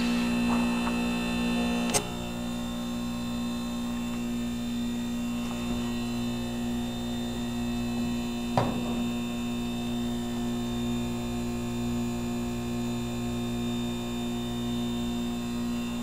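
1988 Heil 2-ton heat pump outdoor unit running in its defrost cycle, giving a steady hum made of several steady tones. A sharp click comes about two seconds in, after which the unit is slightly quieter, and a single knock comes a little past the middle.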